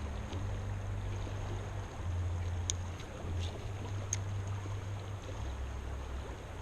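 River current running steadily, an even rush of water with a low rumble beneath it and two faint ticks, a little under a second and a half apart.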